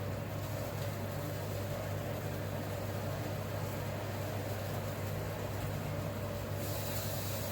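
A steady machine hum with a constant mid-pitched tone under an even hiss; a brighter high hiss comes in about six and a half seconds in.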